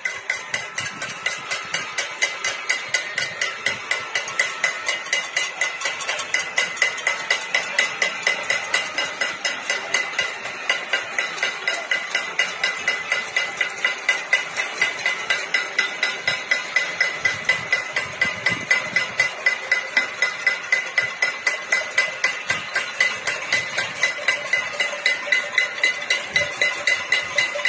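Many pots and pans being beaten at once in a cacerolazo, the pot-banging protest: a dense, continuous metallic clatter with a ringing clang, and a nearer pot struck in a steady rapid beat.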